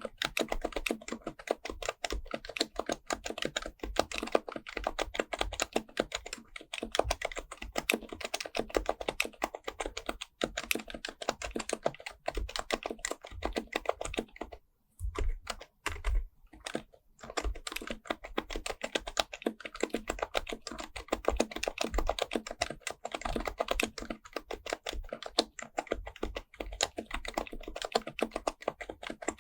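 HHKB Professional Type-S keyboard with Topre electrostatic capacitive switches being typed on fast and continuously, the keystrokes coming in a dense stream. It stops briefly twice about halfway through.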